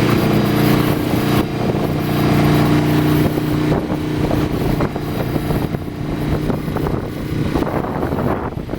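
Kohler gasoline marine generator running, its note changing as an electrical load is put on and taken off again. The steady hum shifts and turns rougher about four seconds in.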